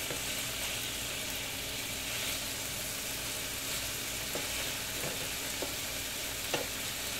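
Diced beef sizzling in a frying pan, a steady hiss, as it is stirred with a slotted spatula, with a few light scrapes and taps of the spatula in the second half.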